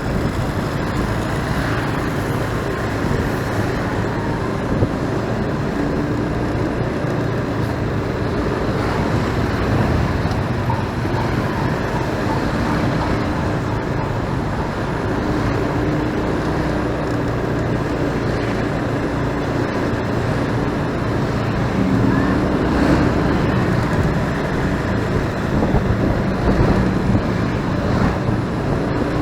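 Unedited road sound ridden through busy city traffic on a motorcycle: a steady mix of engine and tyre noise from the bike and surrounding vehicles, with engine drones that hold and shift in pitch and grow a little louder near the end.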